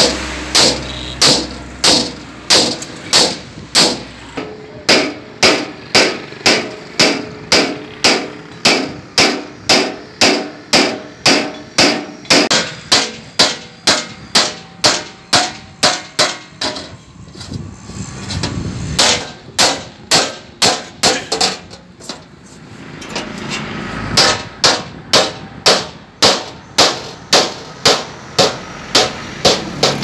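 Hand hammer striking a steel sheet laid over a steel rail, bending it into a curved concrete-mixer drum panel: sharp metal-on-metal blows at about two a second. The hammering stops for several seconds a little past halfway, with a steadier background noise, then starts again.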